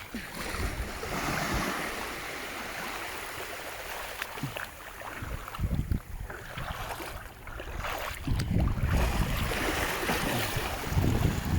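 Shallow sea water lapping and splashing, with wind gusting on the microphone, loudest a little after the middle and again near the end.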